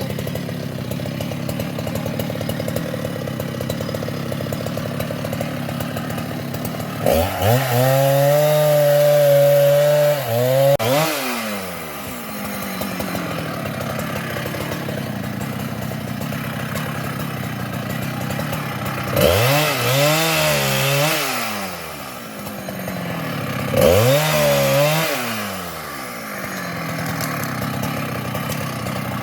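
Large two-stroke Husqvarna chainsaw idling, revved hard three times: once for about three seconds some seven seconds in, then twice more briefly around twenty and twenty-four seconds in.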